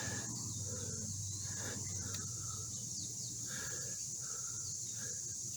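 Crickets trilling steadily in a high, even band, with faint short bird-like chirps scattered through it.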